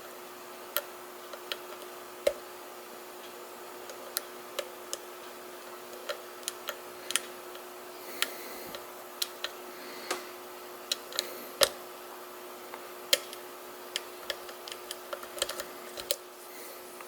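Lock pick working the pins of a Mul-T-Lock cylinder under tension: scattered sharp metallic clicks at an irregular pace, coming faster near the end, over a faint steady hum.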